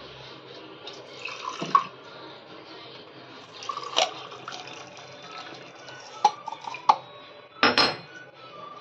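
A whole coconut being cracked open with a knife: a handful of sharp knocks of the blade on the hard shell, the loudest near the end, with coconut water trickling and dripping into a steel cup.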